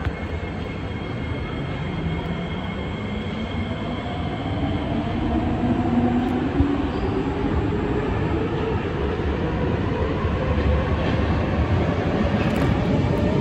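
Kawasaki Heavy Industries C151 metro train approaching and pulling into an elevated station. Its rumble grows steadily louder, with whining tones that shift in pitch over it.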